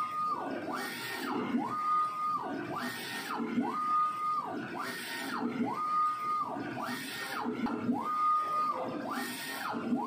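A3-PRO-TX800 UV DTF printer's print-head carriage shuttling back and forth, about one pass a second. Its drive motor whines up in pitch, holds level, then falls on each pass, one pass lower and the next higher, with a hiss each time.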